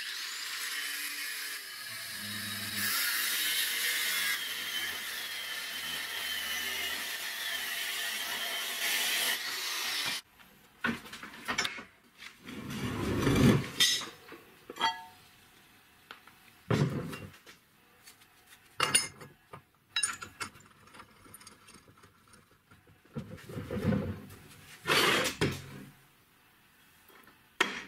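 Angle grinder grinding the rim of a steel brake drum on a car wheel hub, a steady grinding noise for about ten seconds. After that it stops, and scattered metal knocks and clanks follow as the hub parts are handled, with one louder surging whoosh a few seconds later.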